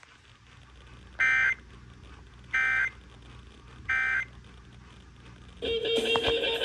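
Emergency Alert System end-of-message code: three short bursts of two-tone digital data, about a second and a half apart, closing the warning. Guitar music starts near the end.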